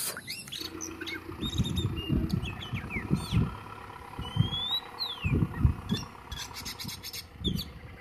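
A forklift's engine running with a steady hum and low rumble as it drives. Birds chirp a few short calls over it.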